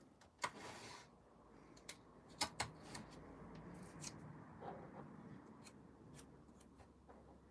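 Faint desk-handling sounds of small hobby items being picked up and put down: several sharp clicks, two of them close together about two and a half seconds in, with a short rustle near the start.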